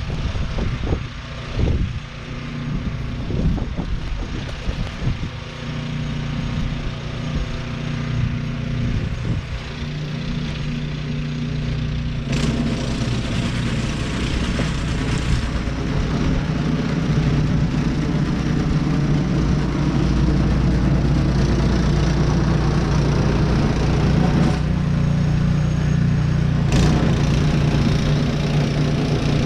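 A vehicle's engine running with a steady low hum that grows gradually louder, with a few knocks in the first seconds.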